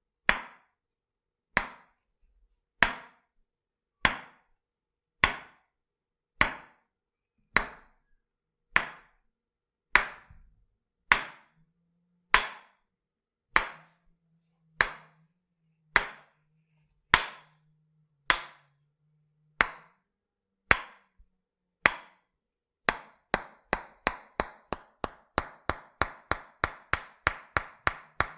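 Tok sen massage: a wooden hammer striking a wooden wedge, wood on wood, in sharp single knocks about one every 1.2 seconds. Near the end it switches to a quicker run of about three knocks a second.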